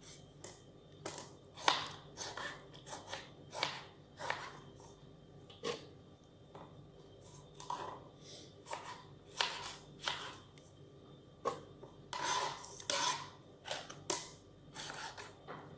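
Kitchen knife slicing tomatoes on a cutting board: irregular short taps and clicks as the blade cuts through and meets the board, a few a second with gaps between.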